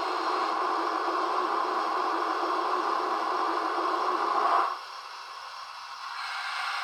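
Steady hiss from a model steam locomotive's onboard sound system, like steam venting from a small speaker; it swells, cuts off abruptly about four and a half seconds in, and comes back softer near the end.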